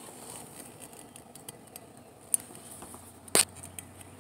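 Plastic clicks from a windshield wiper blade's release clip being worked against the wiper arm by hand: a small click about two seconds in and a sharper, louder one a second later. The clip does not let go of the arm.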